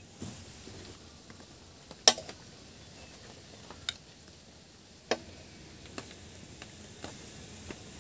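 A cooking utensil knocking and scraping against a pan while cooked potato filling is scraped out, a handful of sharp clinks with the loudest about two seconds in and quieter ones every second or so after.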